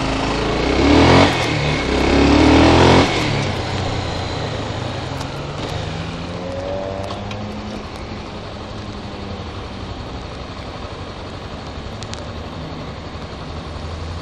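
Honda CB300R's single-cylinder engine pulling away from a stop: the revs climb twice in quick succession with a gear change between, the loudest part, then the engine runs on steadily and more quietly as the bike rides along.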